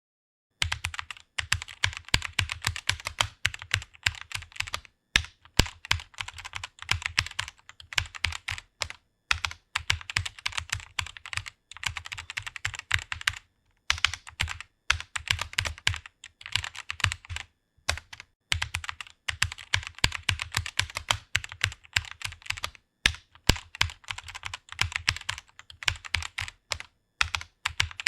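Computer keyboard being typed on quickly, a fast patter of keystrokes in runs with short pauses between them.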